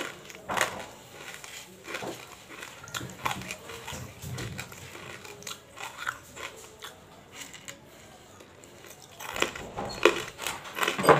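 Close-miked crunching and biting of hard tabasheer (bamboo silica) crystals, with sharp crackly crunches scattered throughout and a louder run of crunches near the end.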